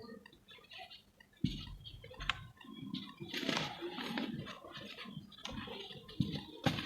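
Lumps of set cement being crumbled: irregular soft crunching and crackling, with sharp snaps about a second and a half in, a little after two seconds, and twice near the end.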